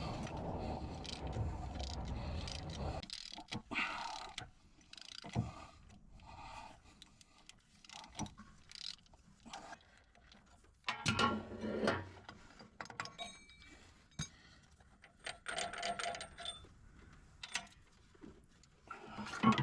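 Metal tools and engine parts clinking and rattling during hands-on engine teardown work, as scattered clicks and knocks with a louder cluster of knocks about halfway through and a few brief metallic rings.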